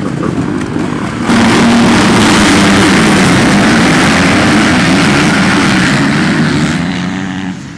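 A pack of small motocross bikes racing at high revs, several engines running together; the sound jumps louder about a second in and fades off near the end.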